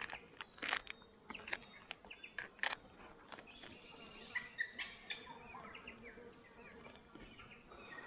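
Spoon stirring and scraping inside a foil freeze-dried meal pouch, a run of crinkles and clicks over the first few seconds. A few bird chirps sound in the background about four seconds in.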